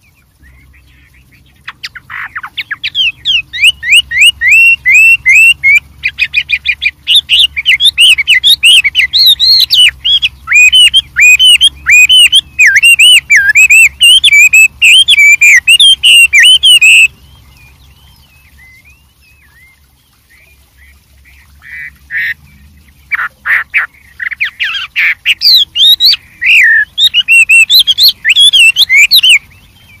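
Chinese hwamei (Garrulax canorus) singing a long, varied song of fast notes that glide up and down. It breaks off about halfway for a few seconds, then starts again.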